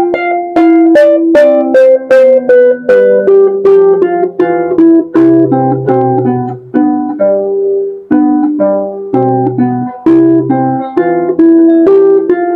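Burmese arched harp (saung gauk) played solo, a melody of plucked ringing notes at about three a second. Deep bass strings sound under the tune twice in the middle.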